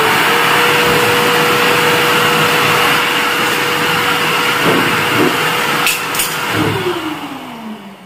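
1200-watt Inalsa Homeasy WD10 wet-and-dry vacuum cleaner running as a blower: a loud rush of air over a steady motor whine. About six and a half seconds in it is switched off, and the whine falls in pitch as the motor winds down, with two clicks just before.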